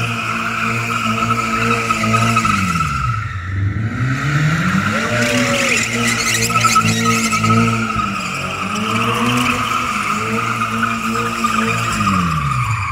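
Toyota GT86's flat-four engine held high in the revs while the rear tyres squeal continuously through drifting donuts. The revs dip and climb again about three seconds in, and drop away near the end.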